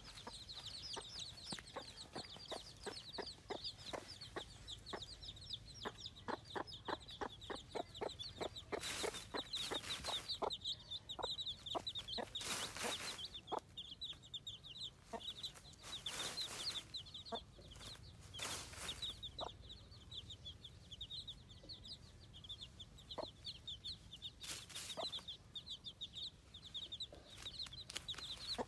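Baby chicks peeping non-stop, a stream of short, high cheeps several a second. Rapid ticking of beaks pecking at feed is thickest in the first several seconds, and a few brief scratchy rustles come through the middle.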